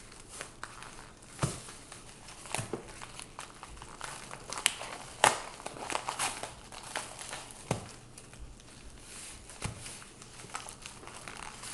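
Hands tearing open a mailed package of sports cards: the packaging crinkles, rustles and tears in irregular bursts, with sharp crackles and clicks.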